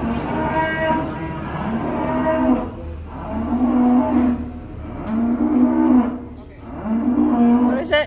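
Beef cattle mooing in the pens, about four long, drawn-out calls one after another, with a sharp click right at the end.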